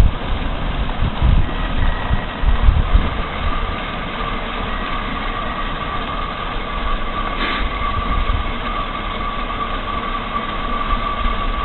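Heavy machine engine running steadily, with low buffeting thumps in the first few seconds and a steady high whine that sets in about three seconds in and holds.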